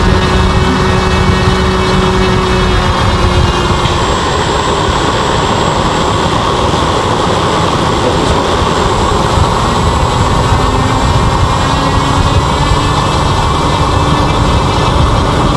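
Homemade gas-fired jet-engine combustion chamber burning steadily, its air blown in by an electric-motor propeller: a loud, steady roar with a motor whine over it that changes pitch partway through.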